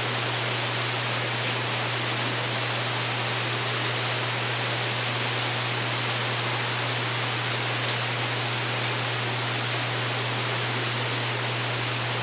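Steady rain pattering on a porch roof, an even unbroken hiss, with a steady low hum beneath it.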